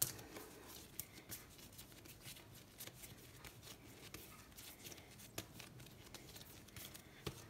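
Faint, scattered soft pats and taps of hands shaping pieces of bread dough into balls on a granite countertop, over quiet room tone.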